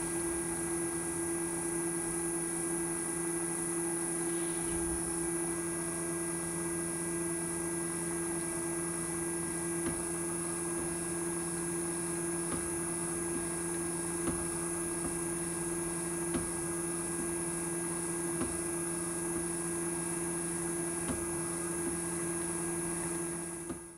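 Drill press spindle running with a steady whine while a 2 mm drill bit bores through a small aluminium block, with a few faint ticks.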